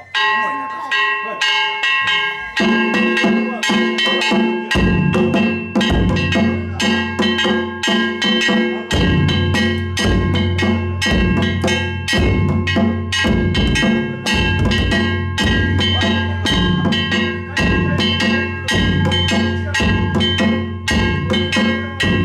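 Danjiri float drumming: the large flat ōdaiko and a smaller barrel drum beaten with wooden sticks in a fast, steady rhythm, with bell-like metallic tones ringing over the strikes. The deep drum comes in about five seconds in.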